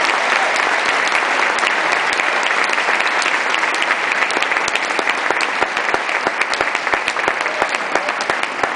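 Audience applauding, a dense steady wash of clapping that thins a little near the end, so that single claps stand out more.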